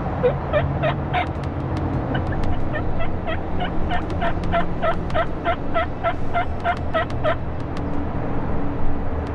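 A long, even series of turkey yelps, about three a second, stopping about two seconds before the end, over a steady low rumble.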